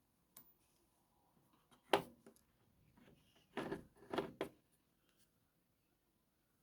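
Small hard knocks and clatter from handling parts during repair work: one sharp click about two seconds in, then a short burst of clattering near the middle.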